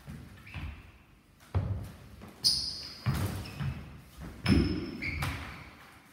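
Training halberds clashing in a large hall: a series of sharp knocks from the shafts and heads meeting, two with a brief metallic ring. Heavy footsteps thump on the floor as the fencers step in.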